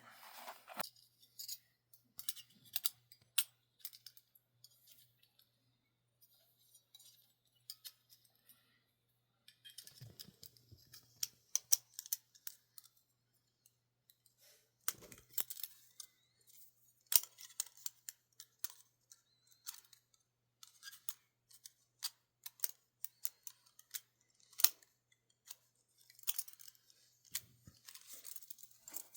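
Irregular sharp metal clicks and light scraping as the plates of a small folding pocket twig stove, the Bushcraft Essentials EDC Bushbox, are handled and slotted together.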